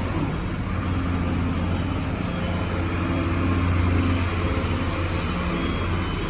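Hyundai HX220 excavator's diesel engine running steadily, a low hum that swells slightly about two-thirds of the way through.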